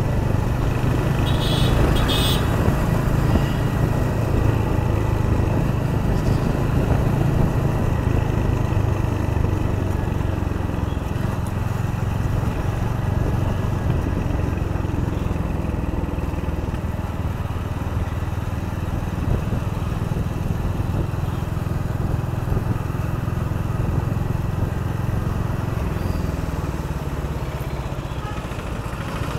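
Royal Enfield Hunter 350's single-cylinder engine running steadily under way, with wind and road rush over it.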